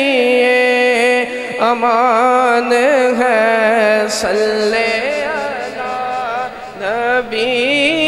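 A man singing a naat into a microphone: long held notes that waver and bend in pitch, ornamented in the Urdu devotional style.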